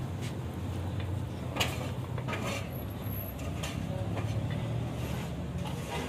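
Steady low motor hum, like an engine idling, with a few soft knocks and rustles as pieces of roasted meat are handled on a platter.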